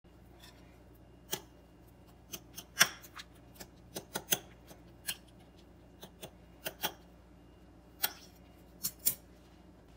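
Metal fork whisking beaten eggs in a ceramic bowl, its tines clinking sharply against the bowl at irregular intervals, about two clinks a second.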